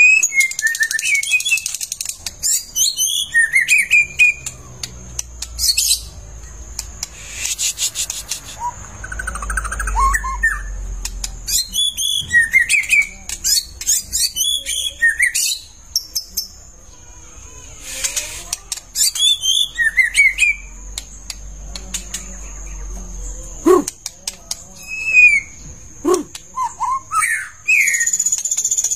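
White-rumped shama singing: a varied run of short, rising and falling whistled phrases broken by harsh rasping bursts, the loud full-voiced singing of a bird in song condition ('gacor').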